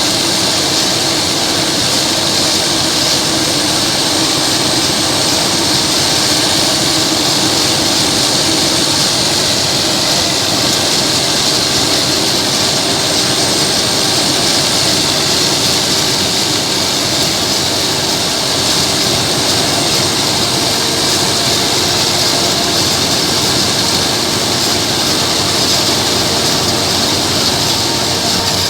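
Claas Jaguar self-propelled forage harvester chopping crop for silage at working speed: a loud, steady machine drone with a constant high whine.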